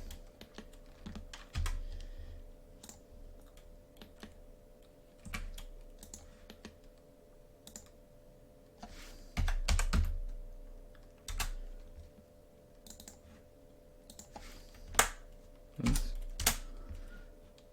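Typing on a computer keyboard and clicking, irregular clicks in short clusters with pauses between them, over a faint steady hum.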